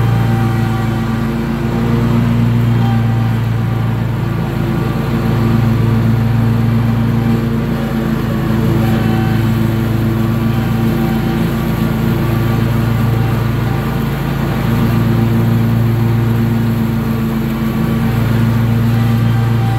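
Toro zero-turn riding mower's engine running steadily with the cutting deck engaged, mowing grass, heard from the operator's seat.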